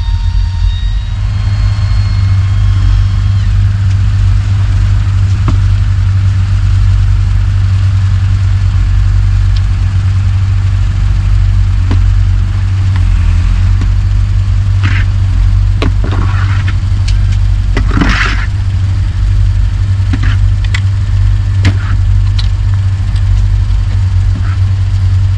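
A steady, loud low engine rumble, with scattered clicks and knocks through the middle.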